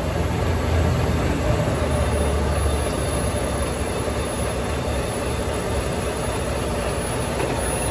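Steady roar of heavy freeway traffic rushing past close by, with a deep rumble that swells and then fades over the first three seconds as a big vehicle goes by.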